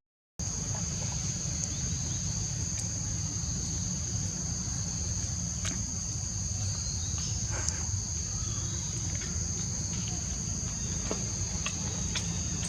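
Insects chirring in a steady high-pitched drone, over a low rumble and a few faint clicks; the sound drops out briefly at the very start.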